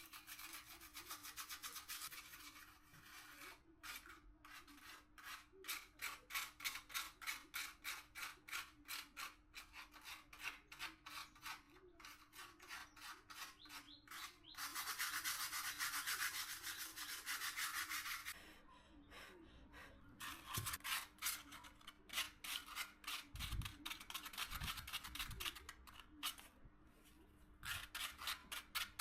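Hand-worked abrasive rubbing on a workpiece: quick back-and-forth scraping strokes, about four a second, with a few seconds of continuous scrubbing a little past the middle. A faint steady hum runs underneath, and a few soft low thumps come later on.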